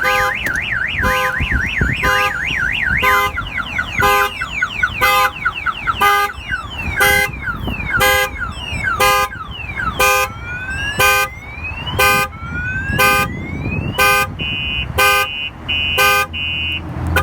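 Aftermarket Autoshield car alarm siren going off after a door is opened. It cycles through its tones: a fast warble, then falling chirps, then slow rising whoops, then a steady tone near the end, with a pulsed tone about once a second throughout.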